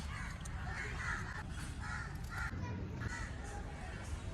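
Crows cawing repeatedly in short, harsh calls over a steady low rumble.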